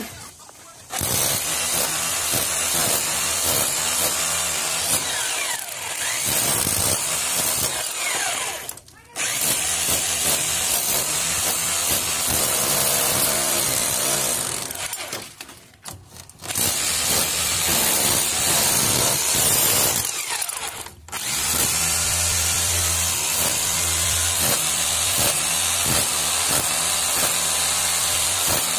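26 mm rotary hammer drill with a flat chisel bit chipping out a slot in a brick wall, hammering steadily. The tool stops briefly about four times: right at the start, and at about 9, 16 and 21 seconds in.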